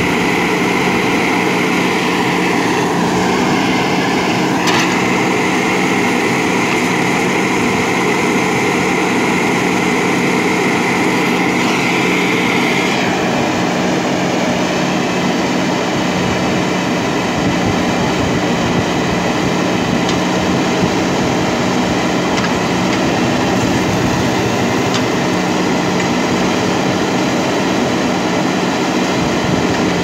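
JCB 3DX backhoe loader's diesel engine running steadily while the backhoe arm works. A higher tone over the engine shifts in pitch about three seconds in and again about twelve seconds in.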